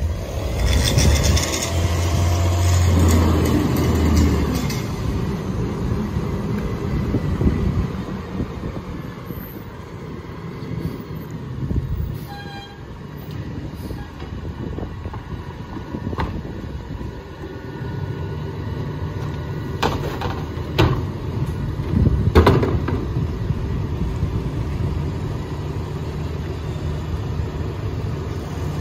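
Mack MRU garbage truck's engine revving with a steady low drone for the first few seconds as the McNeilus rear-loader packer cycles, then running more quietly as the truck pulls ahead, settling into a steady idle. Several sharp knocks come about two-thirds of the way through.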